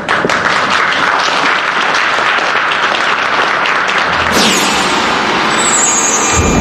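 A crowd applauding: many people clapping steadily together.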